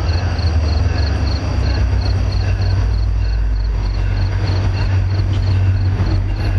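Low, steady rumble of an approaching NJ Transit GP40PH-2 diesel locomotive, with crickets chirping about four times a second.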